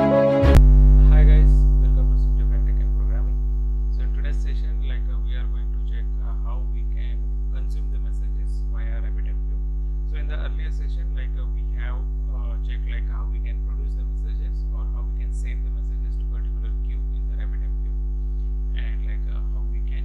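Loud, steady electrical mains hum, a low buzz with a ladder of overtones, picked up in the recording's audio chain. Background music cuts off about half a second in, leaving the hum alone.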